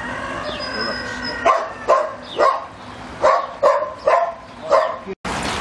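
A dog barking, about seven sharp barks in quick succession, then the sound breaks off abruptly near the end.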